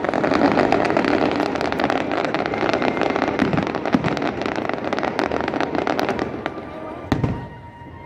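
Aerial fireworks display: dense, rapid crackling from many bursting shells, thinning out after about six seconds, with a single boom about seven seconds in.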